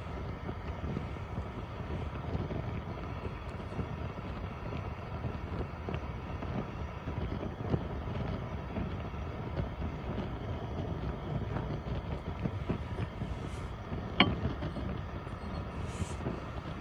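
Wood fire burning with faint crackles and one sharp pop about fourteen seconds in, over wind noise on the microphone.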